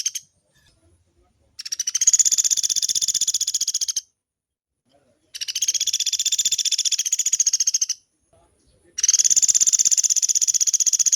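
Pelatuk beras woodpecker calling in long, rapid, high rattling trills, each about two and a half seconds long, repeated with short pauses of about a second in between.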